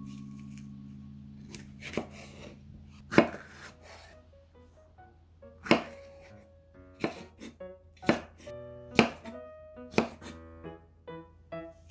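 Chef's knife cutting a yellow bell pepper on a wooden cutting board: a series of irregular knife strikes on the board, the loudest about three seconds in. Soft background music plays underneath.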